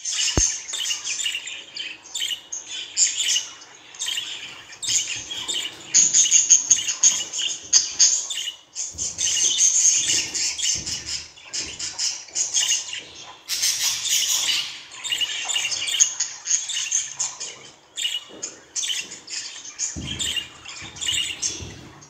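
Budgerigar warbling and chattering: a near-continuous run of quick high chirps, squawks and clicks.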